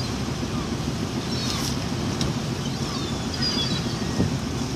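Steady wind rush over the microphone and water noise aboard a small boat at sea, with a few faint, short high squeaks.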